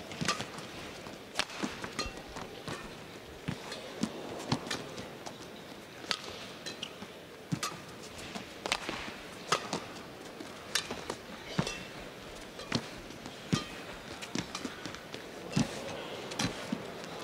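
Badminton rally: irregular sharp cracks of rackets hitting the shuttlecock, mixed with the players' footwork thudding on the court, over a low steady arena hum.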